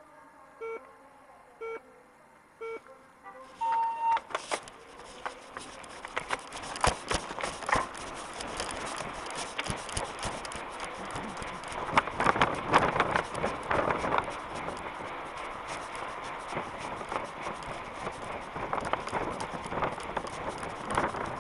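Start clock counting down: a few short beeps about a second apart, then a longer beep about four seconds in. Then a mountain bike setting off and riding fast over cobbles and tarmac, with tyre noise, the bike and its handlebar map board rattling, and wind on the head-mounted camera.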